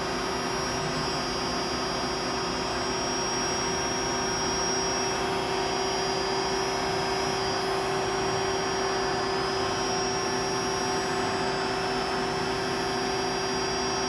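Brother TC-S2A CNC drill-tap center running with a steady whir and a few constant hum tones while its table is jogged along the X axis.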